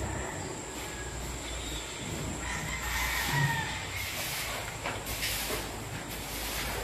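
Steady low rumble of yard ambience, with a faint, drawn-out rooster crow about three seconds in.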